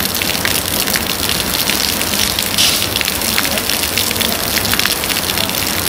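Steady rush of splashing water, dense with small spatters.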